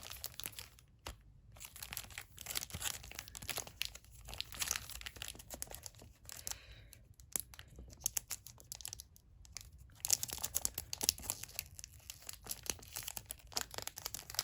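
Wrapping being handled, crinkled and torn open by hand in irregular crackles, busier near the end, as a sealed photo-book package is unwrapped.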